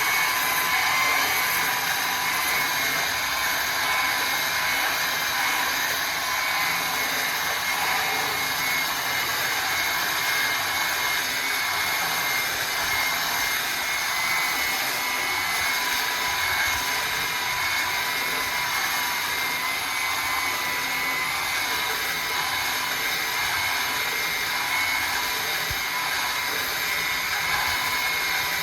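Milwaukee belt sander running steadily: an even motor whine with a constant high hiss, unbroken throughout.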